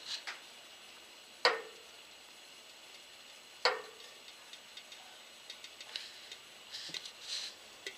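Aluminium soda can held in steel tongs over a gas burner while a little water heats inside it: two sharp metallic clicks, each with a brief ring, about two seconds apart, then a few fainter ticks.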